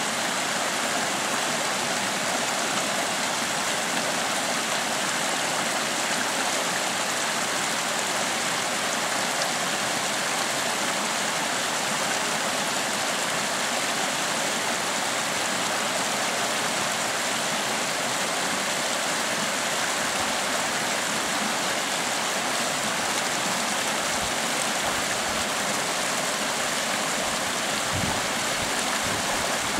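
Creek water rushing over rocks in a steady hiss, with a few brief low bumps near the end.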